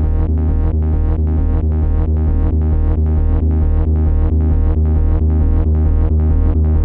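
Electronic dance music with a steady beat: synthesizer chords pulsing about four times a second over a sustained bass.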